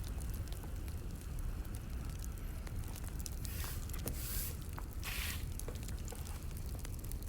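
Wood fire crackling: many small sharp pops and snaps over a low steady rumble, with two short hissing bursts about halfway through.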